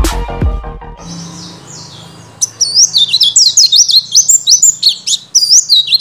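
A caged white-eye (pleci) sings a fast, high twittering song of quick rising and falling notes, starting about two seconds in. The tail of intro music ends about a second in.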